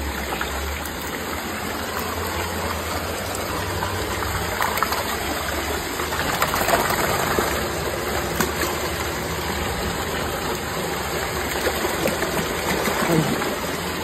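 Steady rush of water pouring over a concrete spillway into a shallow pool, with bits of splashing about midway as a hand grabs a stuck bass in the water.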